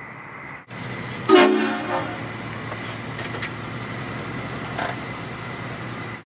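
One short, loud blast of a vehicle-mounted train air horn, sounding about a second in and dying away within about half a second, over steady background noise with a few faint knocks afterwards.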